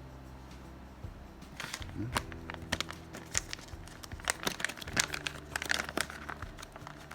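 Plastic packaging being handled, crinkling and crackling in irregular bursts starting about a second in.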